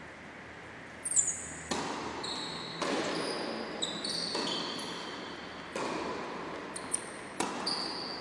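Tennis ball struck by rackets and bouncing on the court floor, a string of sharp hits that starts about a second in, each echoing in a large sports hall. Short, high squeaks of court shoes on the floor come between the hits.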